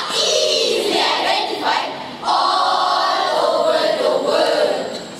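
A large group of schoolchildren's voices, boys and girls together, voicing a line in unison in a sung, drawn-out way. From about two seconds in, the notes are held for a couple of seconds before fading near the end.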